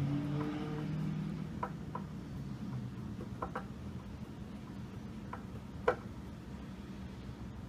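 Phillips screwdriver turning a handle screw by hand through a cabinet door: scattered light clicks and ticks as the screw is driven, the sharpest about six seconds in, over a low hum.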